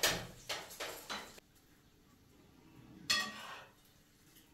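Dishes and cutlery clattering as they are handled. A quick run of clinks and knocks comes in the first second and a half, then one louder clink that rings briefly about three seconds in.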